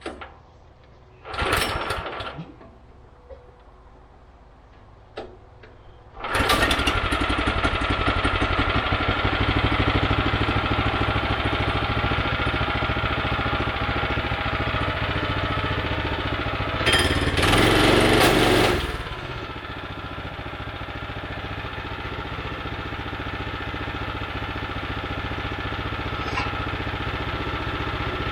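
Small gasoline engine of a portable bandsaw sawmill starting suddenly about six seconds in, after a couple of short noises, then running steadily. About two-thirds of the way through there is a louder rushing burst of a couple of seconds, after which the engine runs on a little quieter.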